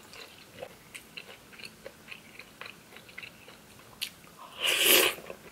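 Close-up mouth sounds of a person chewing cream pasta, with small wet smacks and clicks. About four and a half seconds in, one loud half-second slurp as a forkful of fettuccine is sucked in.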